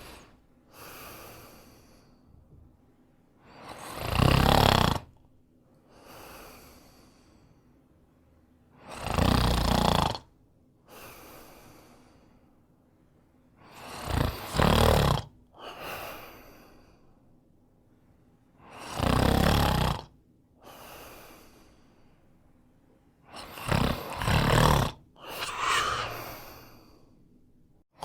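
A man snoring in a steady rhythm: five loud snores about five seconds apart, each followed by a quieter breath a second or so later.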